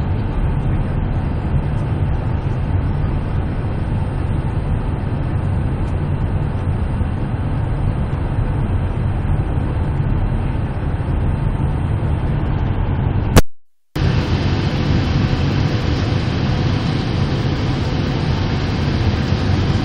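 Steady, low jet airliner cabin noise from a seat over the wing, engines and airflow during the descent to land. About two-thirds through, a sharp click and the sound cuts out completely for about half a second, then returns slightly brighter.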